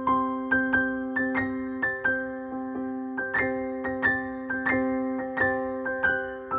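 Background keyboard music: a gentle piano-like melody with notes struck about three times a second over a held low tone.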